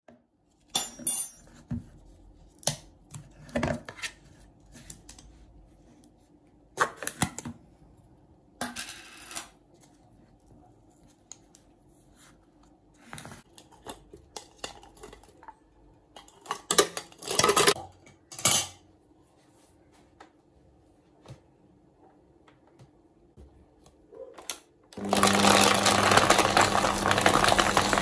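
Scattered knocks and clinks as a countertop blender's jar is handled and filled. About 25 seconds in, the blender starts and runs loudly, crushing frozen strawberries.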